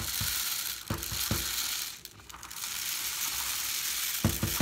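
Dry rice pouring through a plastic funnel and trickling down into a cardboard paper towel tube lined with an aluminum foil coil: a steady hiss with a few knocks, dipping briefly about two seconds in.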